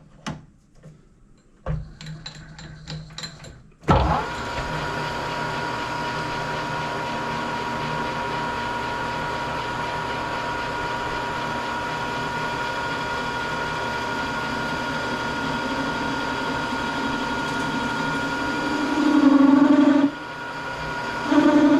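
Metal lathe: a few clicks, then its motor comes on about two seconds in and it runs steadily from about four seconds with a constant whine. Near the end the sound swells twice as the cutting tool works a radius onto the end of a W1 tool steel bar.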